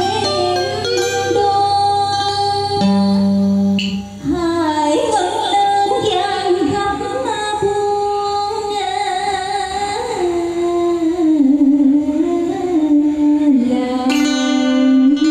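Live cải lương (ca cổ) music over a PA: electric guitar and keyboard play held melodic lines. A woman's voice comes in about four seconds in, singing a bending, ornamented vocal line over the accompaniment.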